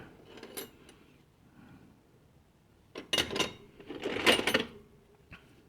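Old steel wrenches clinking and clattering against each other as they are handled, in two short bursts about three and four seconds in.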